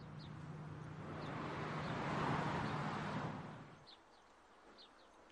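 A rushing noise that swells and then fades out about four seconds in, with small bird chirps scattered throughout.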